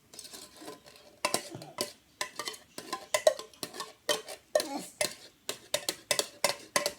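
Spoon scraping and clinking irregularly against the container as thick cherry pie filling is scooped out, a quick run of knocks and scrapes.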